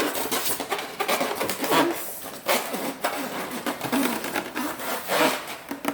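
Cardboard and foam packaging rubbing and scraping in irregular bursts as a boxed stand mixer is worked out of its carton.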